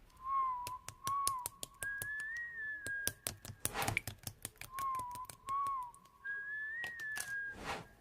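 A whistled tune of two short phrases, a lower one and then a higher one, heard twice over scattered sharp clicks, with two brief louder hissing bursts.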